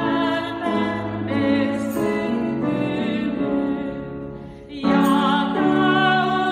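Three women singing a Christmas song together in harmony, with piano accompaniment. The voices hold long notes, fall away briefly about four and a half seconds in, and then come back in strongly.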